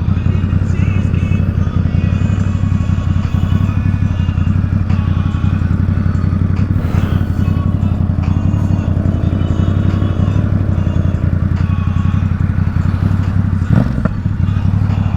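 Ducati Supersport 950 S's 937 cc L-twin engine through an aftermarket Competition Werkes race exhaust, running at a steady engine speed while cruising.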